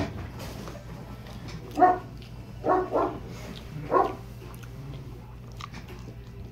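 Small fluffy dog barking four short times: one bark about two seconds in, a quick pair about a second later, and a last bark about four seconds in.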